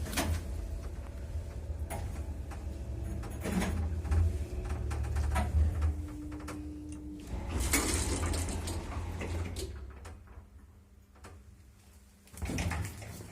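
1983 MLZ passenger lift moving, heard from inside the cabin: a steady low rumble with scattered knocks and creaks, and a short steady squeal about six seconds in. The rumble dies away about ten seconds in, and a clunk follows near the end.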